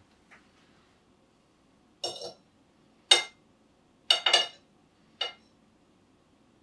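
Metal cutlery clinking against a plate or dish about five times, in short sharp strokes with a brief ring, as the macaroni is scooped up to taste.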